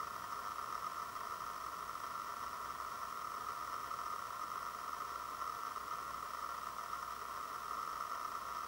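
Steady background hiss with a narrow band of middle-pitched noise running through it and no other sounds.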